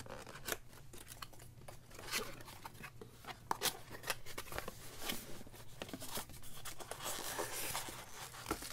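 A cardboard box being opened by hand: a string of short scrapes and taps as the flaps are handled, then a longer rubbing rustle near the end as the styrofoam insert is slid out.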